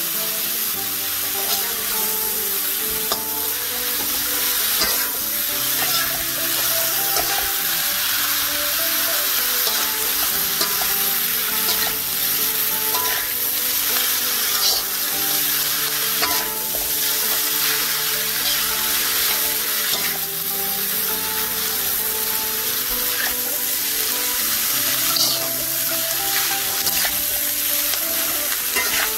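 Chopped wild boar intestines and lung frying in a wok: a steady sizzle, with a metal spatula stirring and scraping against the pan. Background music plays underneath.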